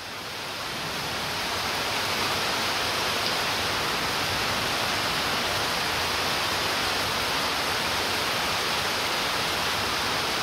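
Heavy pre-monsoon rain squall: a steady, loud hiss of pouring rain, fading in over the first couple of seconds.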